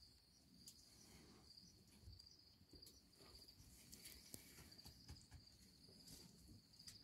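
Faint, steady trilling of crickets at night, with a few soft clicks and taps scattered through it.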